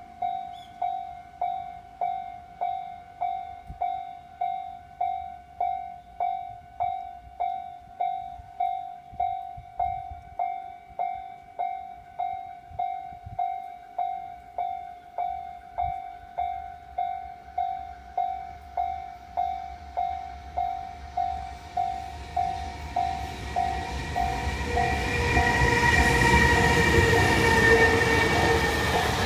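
Japanese railway level crossing's electronic warning bell ringing in a steady beat, just over one strike a second. In the last third a train approaches and passes, and its running noise grows until it is the loudest sound, half-drowning the bell near the end.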